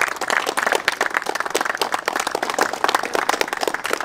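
Applause: a group of people clapping their hands.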